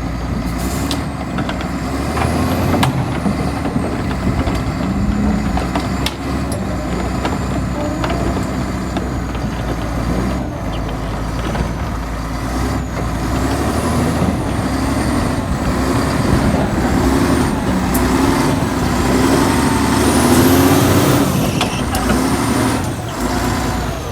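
Heavy diesel equipment working under load as a dead crawler excavator is pushed along, with a steady low engine drone. High metallic squeals rise and fall over it, louder near the end.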